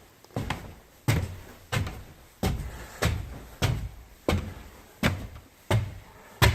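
Footsteps climbing newly built stairs: a steady series of hollow thuds, about three every two seconds.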